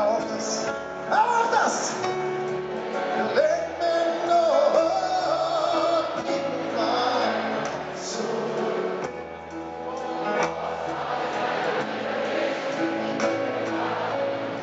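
Live acoustic pop ballad: piano and plucked upright double bass accompanying singing.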